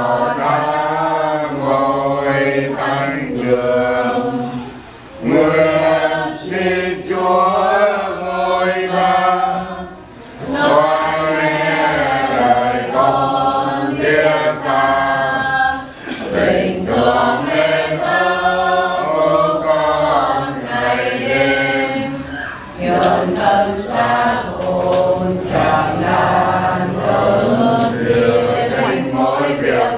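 A group of men and women singing a Catholic hymn together, unaccompanied, in Vietnamese, in long phrases with short breaks between them.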